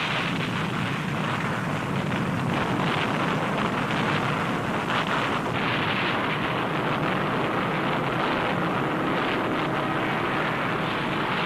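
Steady, dense roar of battle sound: shipboard anti-aircraft gunfire and aircraft noise running together, with no distinct single bangs.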